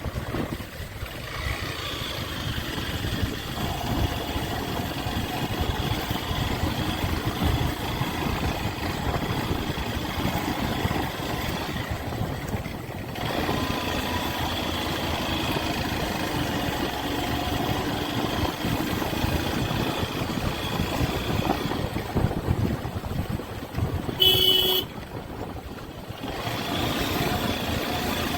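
Motorcycle engine running while riding, its sound dipping briefly about halfway through. Near the end a short horn toot sounds, followed by a moment of quieter engine.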